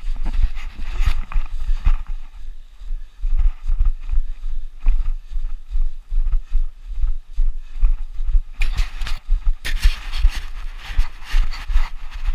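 Running footfalls on a snow slope, each stride thudding through a body-worn action camera in a quick, steady rhythm. About nine seconds in, a loud rushing hiss joins the thuds.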